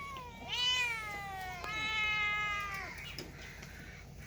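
Cat meowing: a short meow, then two long drawn-out meows in a row, each rising and then falling in pitch.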